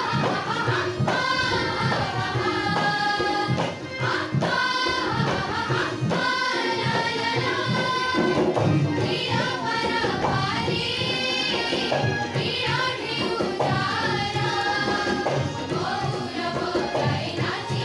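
A group of voices singing an Odia song in chorus, accompanied by a steady rhythm on a hand drum such as tabla.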